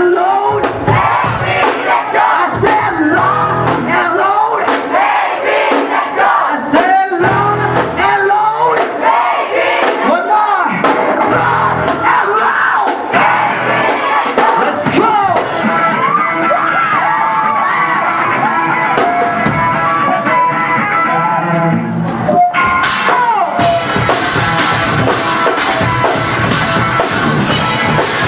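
Live rock band at full volume with a crowd yelling and singing along. About 23 seconds in, the sound briefly drops and a steady beat of regular hits comes in under sustained tones.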